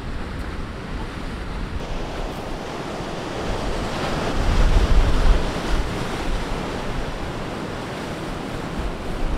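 Surf breaking and washing over a rocky shore, with wind buffeting the microphone. The rush swells to its loudest about halfway through.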